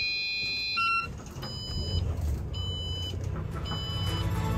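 Electronic beeping: a held high beep that breaks off about a second in, then short high beeps about once a second, over a low hum that grows louder toward the end.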